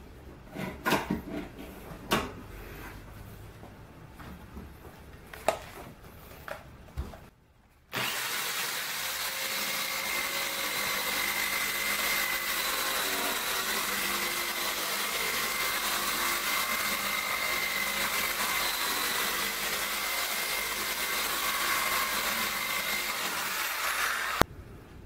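A few sharp clicks and knocks as a one-handed bar clamp is tightened on a wooden workpiece, then an electric drill, mounted in a homemade wooden router base, runs steadily with a faint whine for about sixteen seconds while its bit cuts along the workpiece's edge. The running stops abruptly near the end.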